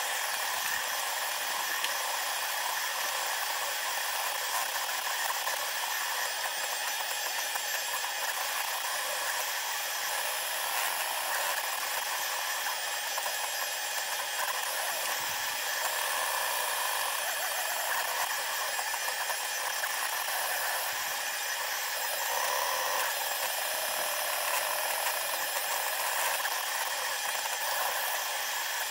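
SeeMeCNC Orion Delta 3D printer running a print, its motor and fan noise sped up tenfold into a steady high-pitched whirring, with tones that shift up and down as the head moves.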